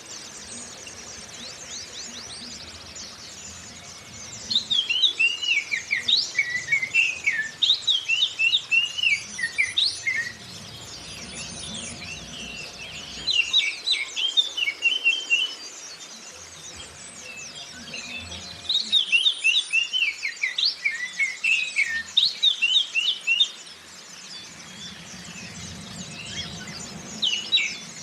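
Oriental magpie-robin (kacer) singing loud, varied whistled phrases in several bouts, over a continuous high twittering of white-eyes (Zosterops).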